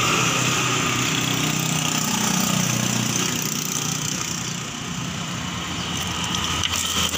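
A small engine running steadily, with a few light metallic clinks near the end as a motorcycle drive chain is pulled off its rear sprocket.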